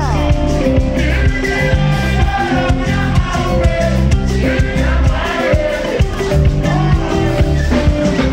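Live band music played loud through a stage PA: heavy electric bass and drums keeping a steady beat, with singing over the top.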